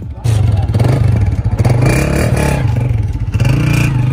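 Honda 125 motorcycle's single-cylinder four-stroke engine revved repeatedly through its exhaust silencer, the pitch rising and falling with each blip of the throttle. It gets suddenly louder just after the start.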